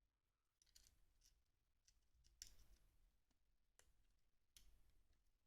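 Near silence broken by a few faint, scattered clicks: small tools and fingers working a smartphone's flex cable onto its tiny board connector.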